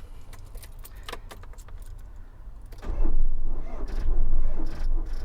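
Keys rattling and the ignition clicking, then, about three seconds in, a Ford Transit Mk6 'Smiley' diesel engine cranking on its starter motor without firing, its battery flat from a month of standing.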